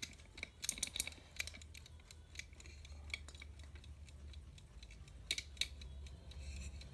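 Irregular small metallic clicks and taps from the alarm clock being handled and adjusted by hand, over a low steady hum.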